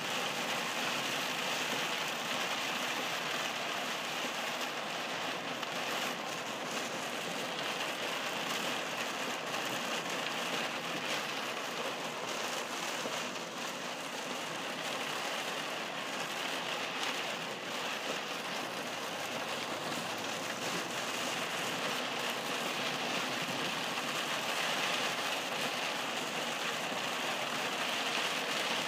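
Heavy rain beating on a moving car's roof and windshield, heard from inside the cabin as a steady, even hiss.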